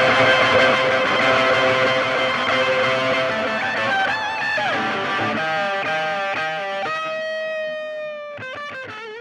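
Background rock music led by distorted electric guitar, thinning out to a few sustained, bending guitar notes that fade away near the end as the track finishes.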